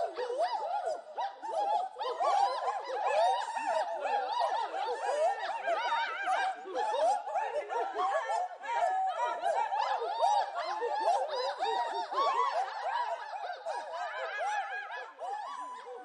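Group scream-singing: many voices in overlapping, wordless cries that waver up and down in pitch.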